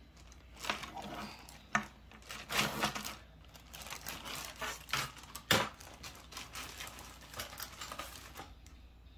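Seashells clicking and clattering against each other inside a plastic zip-top bag as a child shakes it, opens the zipper and reaches in, with crinkling of the plastic and a few sharper clicks.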